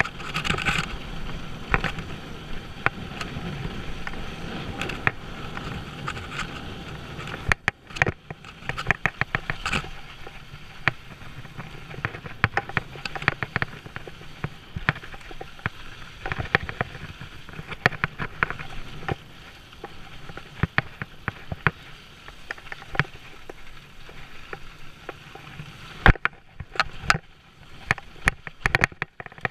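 Mountain bike riding fast down a dry dirt trail: tyres rolling over loose dirt and gravel, with the bike rattling over bumps in many quick sharp clicks. Near the end there is a short quieter moment, then a hard thump.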